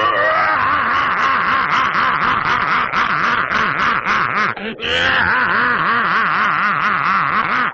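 Dolphin chattering: rapid warbling squeals over a run of fast clicks, with a short break a little past halfway.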